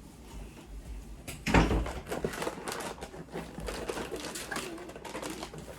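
Snack packaging being handled: irregular crinkling and clicking, with a knock about a second and a half in.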